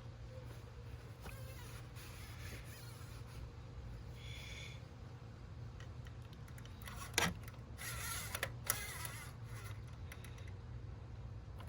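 Quiet handling noises of car parts and tools: a short squeak, a sharp click about seven seconds in, then a second or so of rustling and clatter, over a steady low hum.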